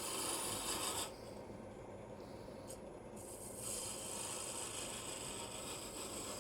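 Wood lathe running while a turning tool takes light peeling cuts on spinning black walnut, a steady hiss of the cut. The hiss breaks off about a second in and comes back a couple of seconds later, with the lathe's low hum underneath throughout.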